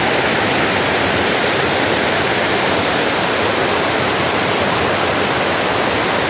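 Waterfall: water falling and splashing over rocks, a loud, steady rush.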